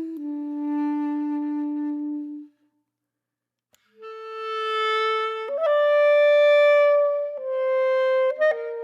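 Music: a solo wind instrument playing slow, held notes, one at a time. It breaks off for about a second and a half, then resumes with several more long notes.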